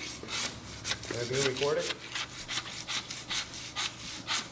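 Long-handled floor scraper rasping along a concrete floor joint in repeated strokes, about two to three a second, shaving off the excess cured polyurea joint filler flush with the surface.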